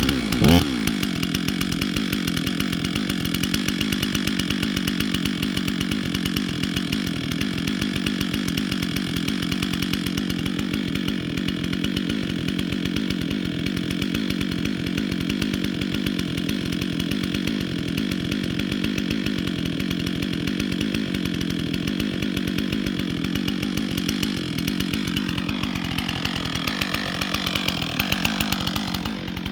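Two-stroke chainsaw running steadily, most likely cutting into a tree. There is a short, sharp louder sound about half a second in, and the engine note shifts near the end.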